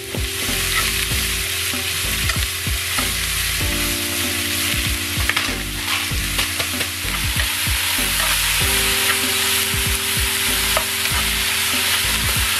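Food frying in a pan with a steady sizzle, stirred so that small scrapes and clicks run through it.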